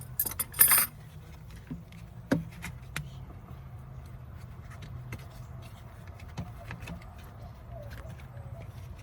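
Metal clicks and rattles of a hose clamp and tools being handled while a coolant hose is adjusted on the reservoir, with two sharper clicks near the start. A steady low hum runs underneath.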